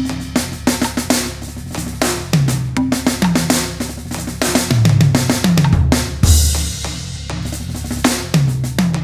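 Bop-style jazz drum kit sounds played on a Roland TD-50X electronic kit with added percussion over a groove loop: kick, snare rimshots and cymbals, plus several low drum hits that slide down in pitch.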